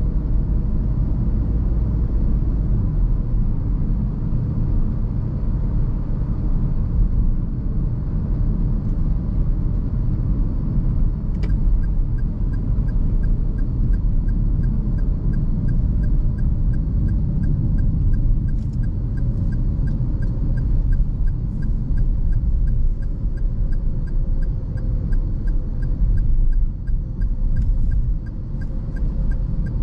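Steady low rumble of tyres and engine inside the cabin of a 2021 Perodua Ativa 1.0 Turbo, with its turbocharged three-cylinder engine, cruising at highway speed. About a third of the way in, the turn-signal indicator starts ticking, about two ticks a second.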